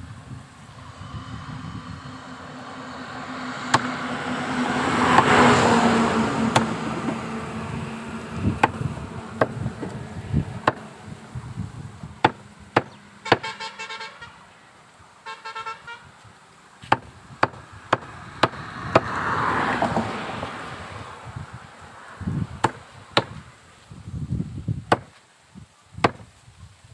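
A large chopper knife hacking raw chicken on a wooden tree-stump block, with irregular sharp chops throughout. A vehicle passes twice, swelling and fading a few seconds in and again about two-thirds through, and a vehicle horn toots twice near the middle.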